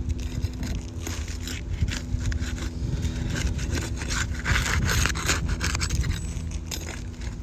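Asphalt roof shingles being pried and lifted loose, with irregular scraping and crackling as the tabs come away from the shingles beneath. A steady low hum runs underneath.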